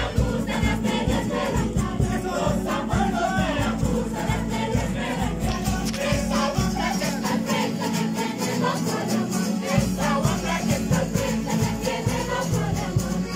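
Acoustic guitar strummed in a steady rhythm while a group of voices sings coplas, festive sung verses.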